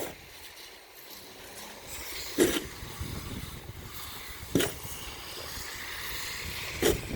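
Snow shovel working snow: three short, sharp scrapes or strikes about two seconds apart, over a soft outdoor hiss.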